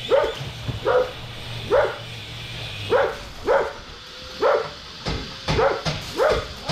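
A dog barking over and over, about one bark every half second to a second, with a pair of barks in quick succession near the end.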